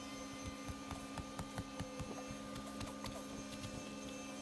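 A steady, even machine hum, with scattered soft knocks and scrapes of a mattock chopping into sod and dirt.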